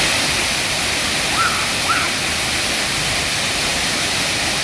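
Steady rushing roar of the Salgadeira waterfall, water falling and splashing. Two brief faint chirps rise over it about a second and a half and two seconds in.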